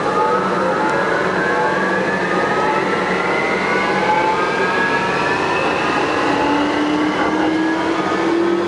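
Bombardier-built Wenhu line metro train running and picking up speed: several motor whine tones rise slowly in pitch over a steady running rumble. The uploader says this trainset makes an abnormal noise while running.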